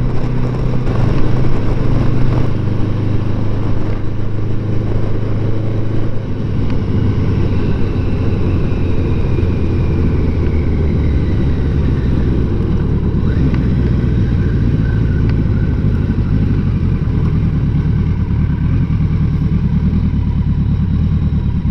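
Motorcycle engine running steadily while riding. The engine note changes a couple of times in the first several seconds, then holds steady.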